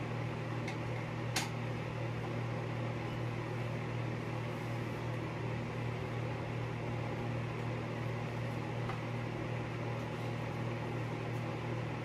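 Steady low hum of a running appliance motor, with two faint clicks about a second in.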